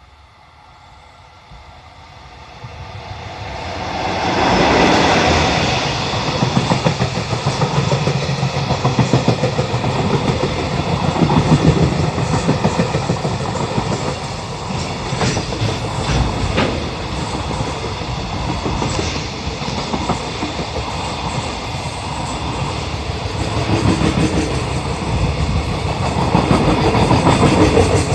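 EF66 electric locomotive hauling a freight train past at close range. The sound builds as the train approaches and is at full loudness by about four to five seconds in. The freight wagons then roll by, their wheels clicking over the rail joints.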